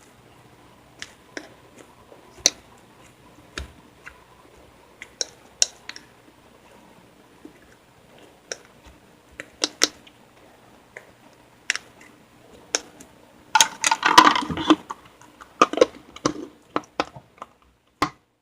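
Slime being handled: scattered sharp clicks and pops as it is poked and pressed, with a busier, louder stretch of crackling squishing about two-thirds of the way through.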